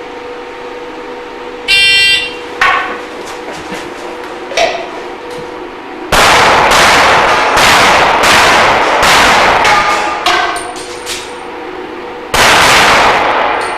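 Electronic shot-timer start beep, then pistol shots: two single shots, then two rapid strings of fire on steel plates, with metal clanging among the shots.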